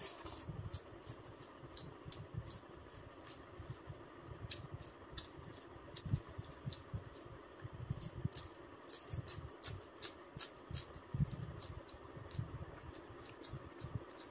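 Close-miked eating of roasted chicken: chewing and mouth sounds with many short wet clicks and smacks, and soft low thuds.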